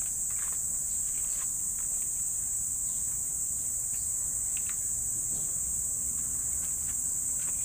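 Steady, high-pitched drone of an insect chorus, with a few faint short chirps or clicks.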